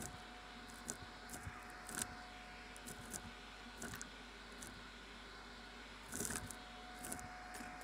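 Vacuum cleaner running steadily while its crevice tool sucks up carpet fluff and small debris, with scattered clicks and rattles as bits are pulled into the nozzle, a short flurry of them about six seconds in.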